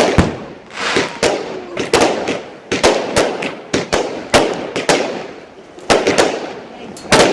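Fireworks going off: a rapid, irregular string of sharp bangs, a dozen or more, with crackling between them.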